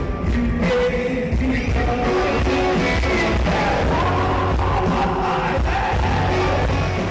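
Live rock music from a band with a singer, heard from the seats of an arena concert.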